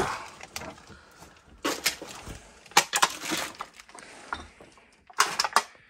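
Irregular knocks, crunches and clicks of footsteps and handling across a trash-strewn floor, with a brief cluster of them about five seconds in.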